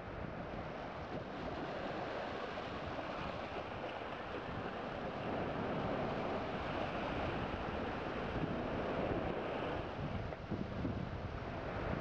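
Sea waves breaking and washing around shoreline rocks, with wind on the microphone: a steady rushing noise.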